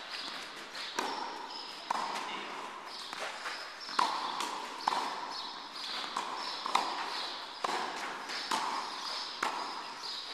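Tennis balls struck by a racquet and bouncing on a clay court, a sharp pock about once a second at an uneven rhythm.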